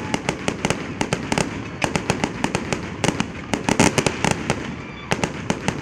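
Fireworks going off: a rapid, irregular string of sharp bangs and crackling pops, most dense a little past the middle.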